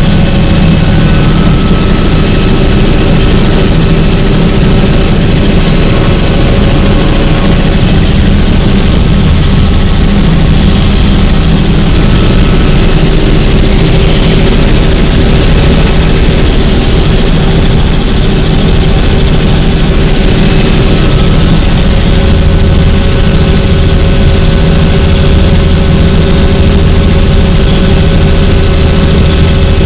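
Tour helicopter in flight: a steady high turbine whine over the low drone of the engine and rotor, loud and unbroken.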